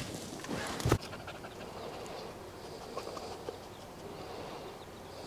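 Two short thumps in the first second, then a dog panting and snuffling quietly on grass, with faint bird calls.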